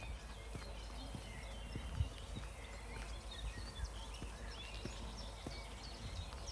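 Footsteps walking at a steady pace, with small birds chirping and singing throughout.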